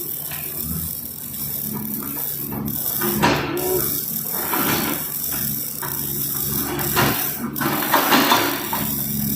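Tata Hitachi 110 excavator's diesel engine running steadily under work, with louder rushing surges a little after three seconds, around five seconds and around eight seconds.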